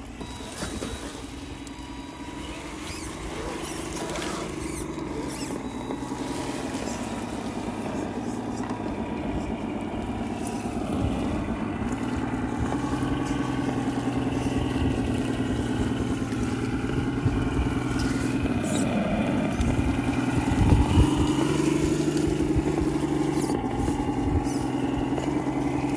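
Whine of 1/10 scale RC crawlers' electric motors and gear drivetrains climbing a rocky dirt slope, the pitch rising and falling as the throttle changes and getting a little louder in the second half.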